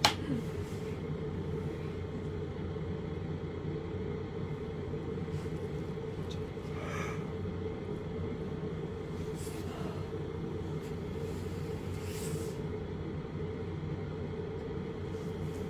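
Steady low hum of room background noise, with a few faint brief rustling sounds.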